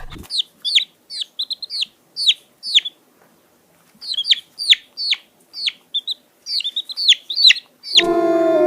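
A bird calling: a series of short, high, down-slurred chirps, two or three a second, in two bouts with a pause of about a second between them. Near the end it cuts to a lower, long, wavering call.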